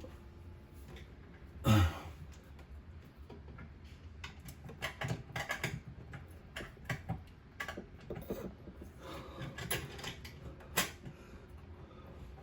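Hand-handling clicks, knocks and rattles of a bathroom sink's pop-up drain parts as the lift rod and its strap are worked into place, with one louder knock about two seconds in and a sharp click near the end.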